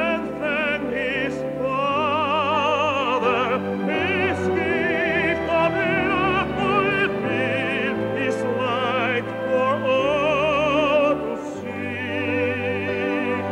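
Operatic singing over an orchestra: long held notes with wide vibrato, with no clear words.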